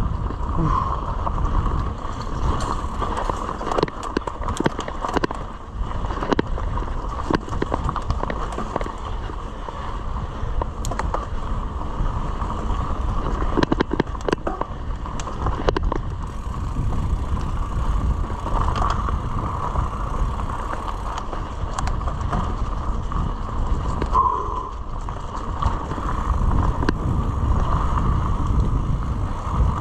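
Mountain bike being ridden along a dirt singletrack trail: steady tyre and drivetrain noise, with sharp knocks and rattles as the bike goes over bumps, most of them a few seconds in and again about halfway through. Wind rumbles on the microphone underneath.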